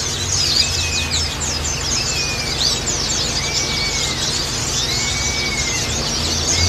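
White-eyes (pleci) twittering in a dense, rapid, high-pitched chorus. A slurred, arched whistle repeats about every second and a half over it, with a low hum underneath.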